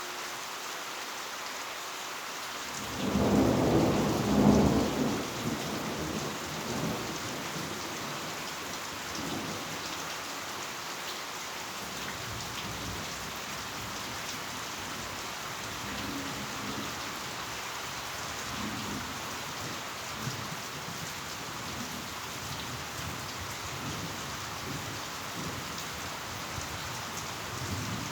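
Heavy rain falling steadily, with a clap of thunder about three seconds in that rumbles and fades over several seconds, and fainter rumbles later on.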